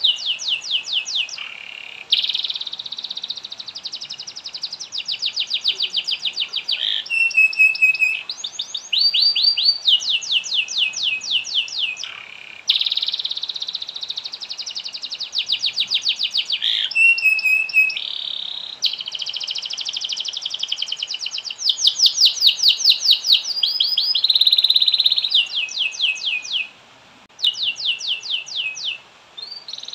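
Domestic canary in full, vigorous song: long, nearly unbroken rolls of fast trills, each a rapid run of repeated notes, shifting in pitch from phrase to phrase. There are two short breaks near the end.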